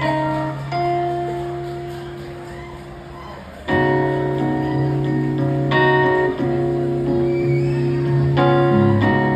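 Keyboard played live through a concert PA, holding sustained chords over a steady low note. The first chord fades away, then a louder chord comes in about four seconds in, followed by further chord changes.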